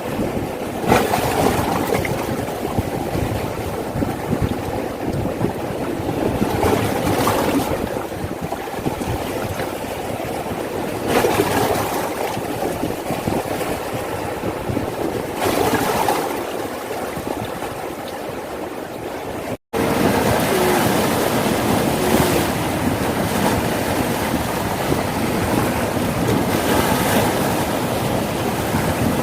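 Sea waves washing onto a beach, the surf swelling every four to five seconds. The sound cuts out for an instant about two-thirds of the way through.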